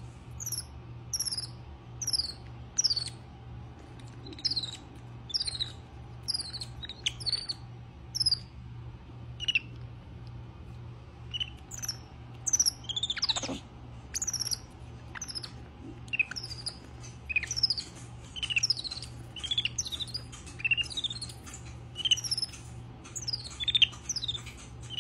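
Young capuchin monkeys chirping: a steady run of short, high-pitched squeaks, each falling quickly in pitch, about one to two a second, with one longer, louder sweeping call about halfway through.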